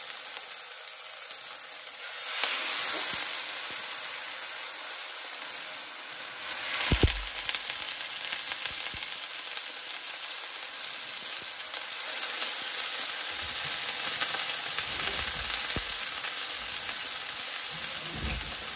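Chicken cutlets sizzling in hot oil in a frying pan, the sizzle swelling as fresh raw cutlets are laid in, about two seconds in and again, loudest, around seven seconds in with a brief knock.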